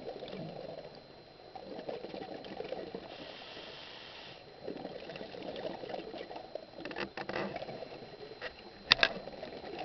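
A scuba diver's regulator breathing, heard through the underwater camera housing: bubbly, gurgling exhalation and a hissing inhalation a few seconds in. A few clicks follow, then one sharp click near the end, the loudest sound.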